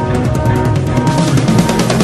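Recorded music with a fast, steady drum beat over sustained low notes.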